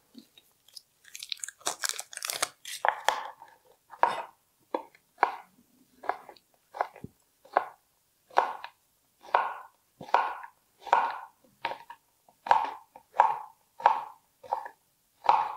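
Large kitchen knife chopping Joghurette chocolate bars on a cutting board: a regular run of crunching cuts, one to two a second, coming more densely in the first few seconds.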